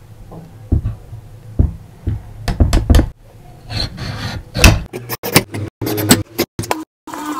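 A Y-shaped vegetable peeler gripped in a prosthetic hook, scraping strips off a sweet potato and knocking against a wooden cutting board: irregular sharp knocks and scrapes, coming faster in the second half.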